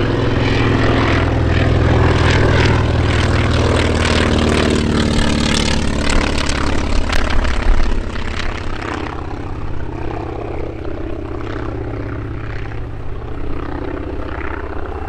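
North American T-28B Trojan's nine-cylinder Wright R-1820 Cyclone radial engine and propeller running as the aircraft passes low on a landing approach with its gear down. The sound is a strong, low, steady drone that turns uneven around six to eight seconds in, then drops suddenly to a quieter, steady drone.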